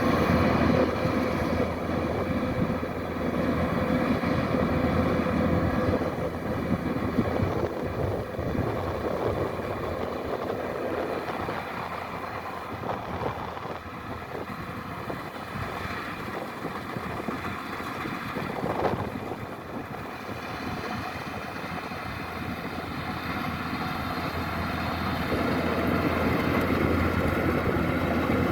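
Kubota DC-105X combine harvester running steadily as it harvests rice, its diesel engine and threshing machinery giving a continuous hum. It gets quieter through the middle and louder again near the end.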